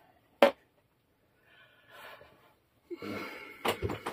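A single sharp knock about half a second in, likely from handling the cloth-covered tray case. From about three seconds in come muffled rustling, clicks and a young child's faint voice.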